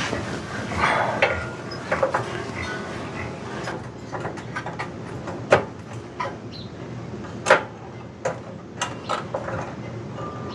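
Irregular small clicks and taps of a screwdriver and metal parts being handled while fitting a ground wire and screw inside a pellet grill's control panel housing, with two louder clicks about halfway through.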